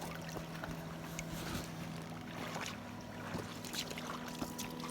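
Small knocks and light water sounds as backpacks are loaded into a canoe at the water's edge, over a steady low hum.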